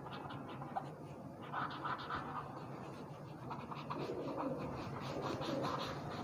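Cotton bud rubbing in faint short strokes over charcoal pencil shading on drawing paper, blending the charcoal.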